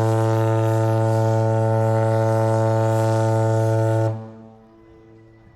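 Cruise ship's horn sounding one long, deep blast, the departure signal that the ship is about to leave port. It stops about four seconds in and its echo fades away.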